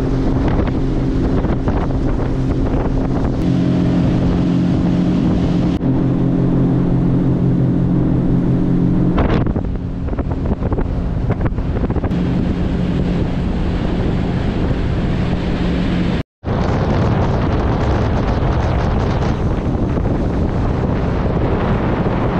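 Motor vehicle engine running steadily while driving, with wind buffeting the microphone; the engine note rises for a few seconds early on and eases off near the middle.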